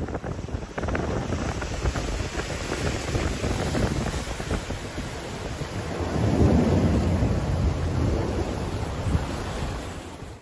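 Heavy storm rain and wind buffeting the microphone, full of sharp patters, with a louder low rumbling swell about six seconds in.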